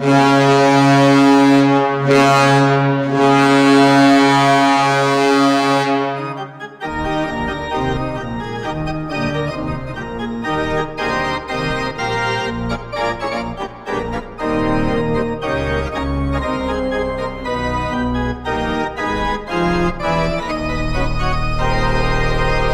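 Hockey goal horn sounding one long, steady, chord-like blast for about six and a half seconds, which cuts off sharply into the goal song, fast-changing organ-like music.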